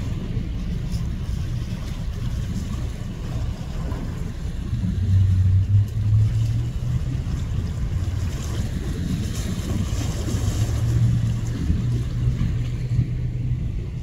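Wind buffeting the microphone with a low, steady rumble, over the wash of small waves on the shore. A low hum, likely from the passing container ship, grows stronger about five seconds in.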